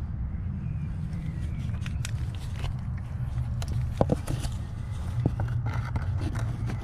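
Steady low rumble with a few light clicks and taps of hands and camera working around the back of a car headlight. The sharpest click comes about four seconds in.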